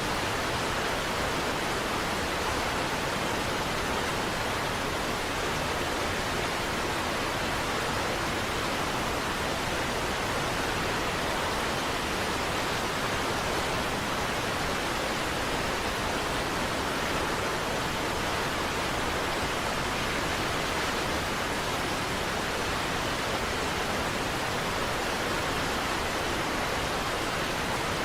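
Steady, unbroken rushing of a large waterfall, an even roar of falling water with no change in level.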